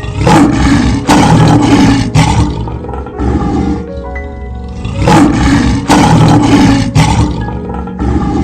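Big cat roaring in two bouts of loud, rough roars a few seconds apart, over soft background music.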